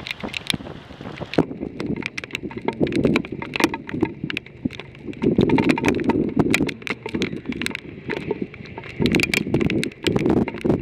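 Hail and rain pelting a car's roof and windshield: dense, irregular clicks and knocks over rushing wind.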